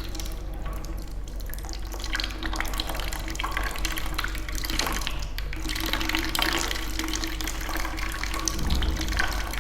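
Water from a neti pot trickling and splashing as it drains out through the nostril during jala neti nasal rinsing: an uneven patter that gets busier about two seconds in.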